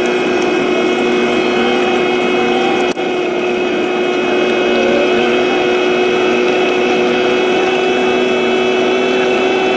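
A vehicle engine running steadily under way, with a constant whine over its drone and an instant's drop about three seconds in.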